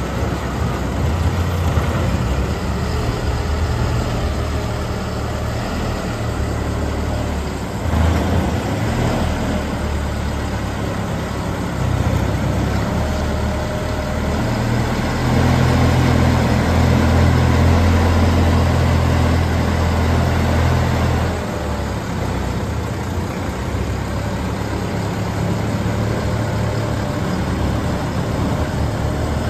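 JLG G12-55A telehandler's diesel engine running at idle, a steady low drone that grows louder for several seconds around the middle and then settles back.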